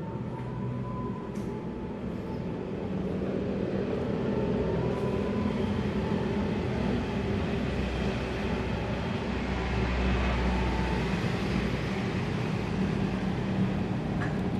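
Steady low mechanical rumble with a hum, like a running engine or heavy machinery, growing louder over the first few seconds.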